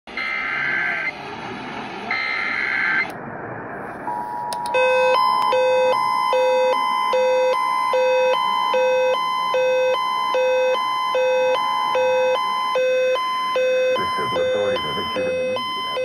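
Emergency Alert System broadcast through radio speakers. It opens with two bursts of the buzzy digital SAME header tones. The steady two-tone EAS attention signal then sounds from about four seconds in until about thirteen seconds, overlaid by an emergency alert radio's alarm beeping in a repeating pattern of alternating pitches, about three beeps every two seconds.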